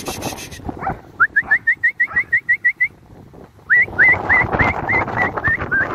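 A dog yelping in quick runs of short, high, rising yelps, about ten in under two seconds, a pause, then about nine more, during rough play with another dog, with scuffling underneath.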